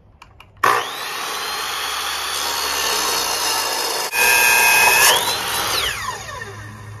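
Chop saw fitted with a Diablo abrasive metal cutoff blade cutting 10-gauge 1.5-inch square steel tube. The motor starts with a quick rising whine, then the blade grinds through the tube, loudest about four to five seconds in, and after the cut the motor winds down with a long falling whine.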